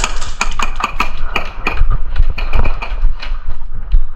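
Airsoft guns firing: an irregular string of sharp cracks, several a second, over a low rumble.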